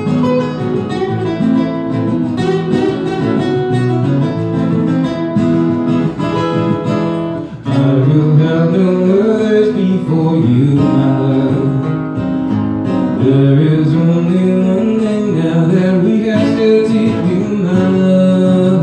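Acoustic guitar being strummed in a steady rhythm. About eight seconds in, after a brief dip, a man's singing voice joins over the guitar.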